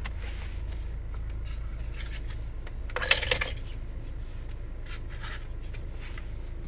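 Steady low road rumble of a moving car, heard inside the cabin, with a brief clinking rustle about three seconds in.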